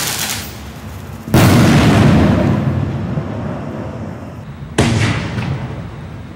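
Black Cat 5-inch canister aerial shells firing: a sharp, loud bang about a second in that rolls away in a long echo, then a second, smaller sharp bang near the end, the thump of the next shell launching from its tube.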